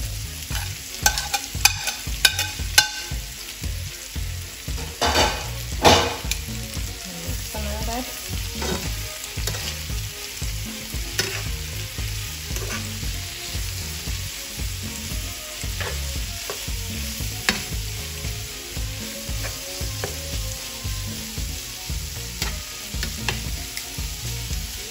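Raw shrimp sizzling and frying in a hot pan of olive oil, butter, garlic and bell peppers while being stirred, with sharp clicks of the utensil against the pan, most of them in the first six seconds and the loudest about six seconds in.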